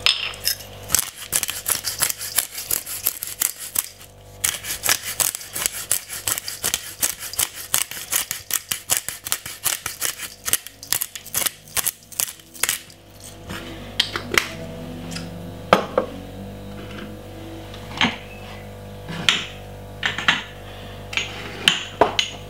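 A disposable spice grinder of chilli, garlic and salt being twisted over the bowl, its ratchet making fast, even grinding clicks. These stop about 13 seconds in, giving way to a few scattered single clicks and taps.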